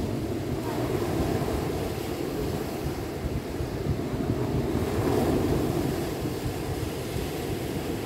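Sea waves breaking and washing up a shore of rounded stones, with wind rumbling on the microphone. The surf swells louder about five seconds in.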